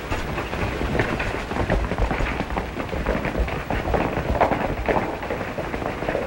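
Hoofbeats of several horses being ridden, a thick run of strikes close together.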